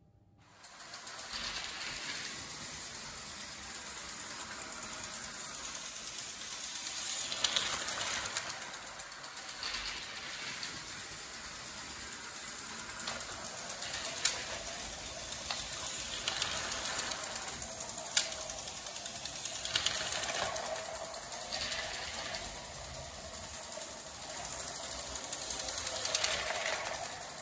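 LEGO 12-volt model trains running on their track: a steady mechanical rattle and whir of motors, gears and wheels, with a few sharp clicks. The sound comes in about half a second to a second in.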